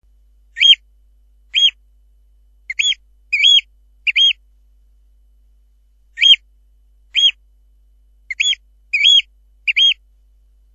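Eurasian oystercatcher calling: two series of five short, high calls, each rising and falling in pitch, with a pause of about two seconds between the series.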